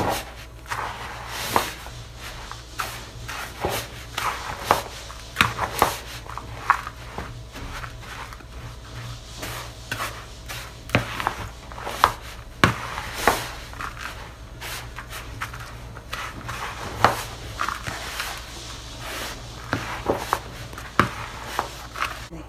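Wooden spoon stirring freshly scalded polvilho (tapioca starch) dough in a bowl: irregular knocks and scrapes of the spoon against the bowl, over a steady low hum.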